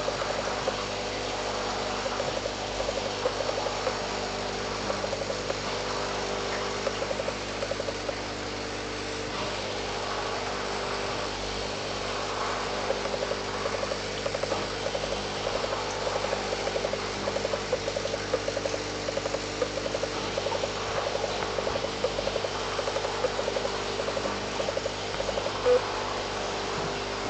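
A steady mechanical hum made of several steady tones, with irregular small ticks running through it. There is one brief louder click near the end.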